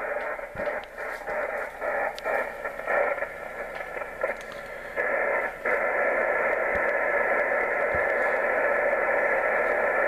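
Kenwood TS-940 HF transceiver's speaker putting out receiver band noise, a hiss that cuts in and out unevenly as a board connector is wiggled, then settles to a steady hiss about five and a half seconds in. The dropping receive audio is the sign of an intermittent connection at that connector.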